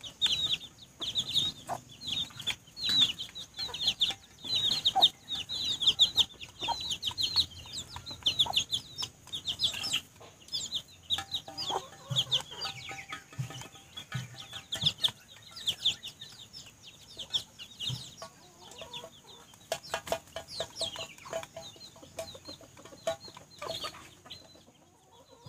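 Chicks peeping rapidly in high, falling notes, heaviest in the first half, with lower clucking from the adult chickens from about halfway on. Sharp taps of beaks pecking at a metal feed bowl are scattered throughout.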